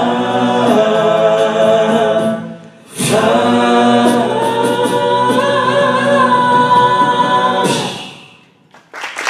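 A cappella vocal group singing the closing phrases in close harmony. A chord is held, there is a short break about two and a half seconds in, and then a long final chord with a high voice wavering above it, cut off together near the end. Applause begins just after it.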